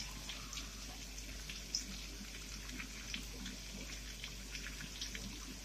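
Pork, onion and squash cubes sizzling in a frying pan: a soft steady hiss with scattered small crackles.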